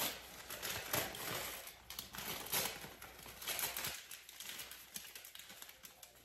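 Gift-wrapping paper crinkling and rustling in short, irregular handfuls as a small wrapped present is handled and unwrapped, dying down toward the end.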